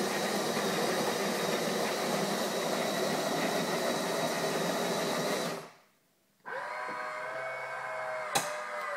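The built-in coffee grinder of a Pronto ME707 fully automatic coffee machine grinding beans for an espresso, a steady whirring that stops abruptly about five and a half seconds in. After a moment of silence, background music comes in.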